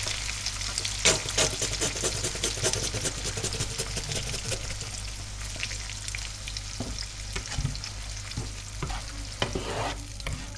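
Passata sizzling and crackling in a hot frying pan over fried onions and garlic, just poured in to deglaze it. A spatula stirs through the sauce now and then.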